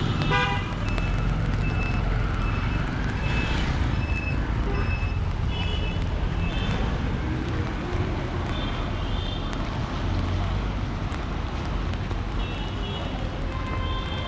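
Busy city street traffic: a steady low rumble of vehicle engines, with short horn beeps sounding again and again.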